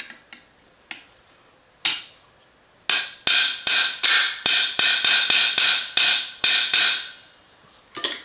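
Sharp ringing metal-on-metal taps: one, then a quick run of about a dozen at about three a second, then one more near the end. A part of the AR-15 gas piston system is being tapped further into place on the upper.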